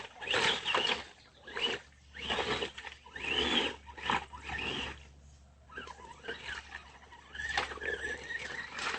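Electric motor and drivetrain of an Axial AX10 RC rock crawler whining in short throttle bursts about once a second, each rising then falling in pitch, with lower wavering whine in the second half as it crawls over the creek-bed rocks.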